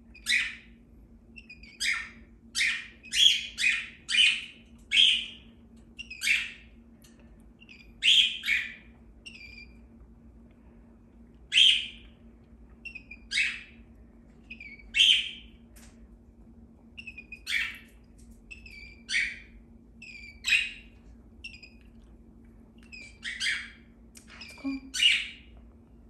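Cockatiel calling in repeated short, sharp chirps, some in quick pairs, with pauses of a second or two between them. A faint steady hum lies underneath.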